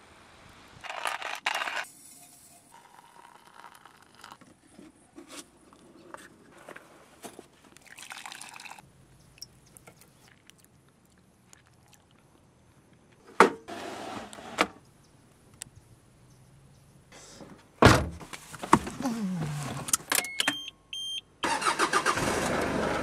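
Scattered clicks and knocks around a Mitsubishi Delica van, with two loud sharp knocks about a third and three quarters of the way in, then a few short electronic beeps. Near the end the van's engine starts and keeps running.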